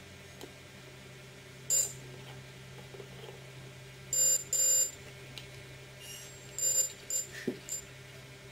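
Homemade continuity tester's buzzer giving a series of short, pitched beeps as the probe leads are touched together. Each beep means the circuit is closed and there is continuity. The two longest beeps come about four seconds in.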